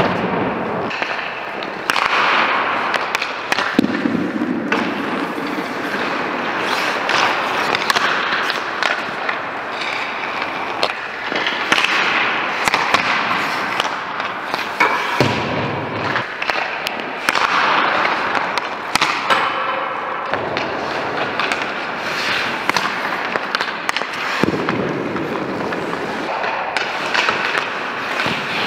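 Ice hockey shooting drill: skate blades scraping and stopping on the ice, sticks hitting pucks, and pucks cracking off the goalie's pads, the net frame and the boards. The sharp knocks come at irregular moments throughout, mixed with scraping that lasts a second or two at a time.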